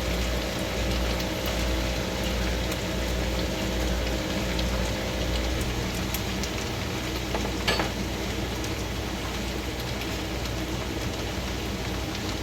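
Fried rice sizzling in coconut oil in a pot on the heat, a steady even hiss, with one sharp click about eight seconds in.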